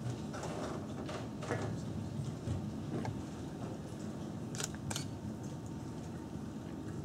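Steady low hum of a school auditorium, with a few scattered short knocks and rustles from performers moving on stage, including a quick pair of clicks past the middle.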